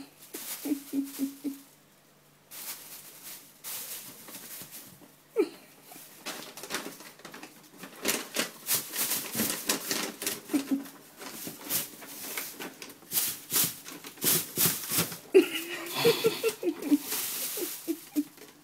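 Thin plastic bag crinkling and rustling with a cat moving inside it and a hand pressing and pulling at it, in many quick crackles that grow busiest in the second half.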